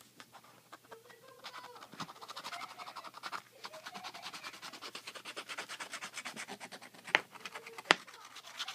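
Scratch-off lottery ticket being scratched: fast, repeated scraping strokes across the card's coating, starting about a second in. Two sharp clicks near the end.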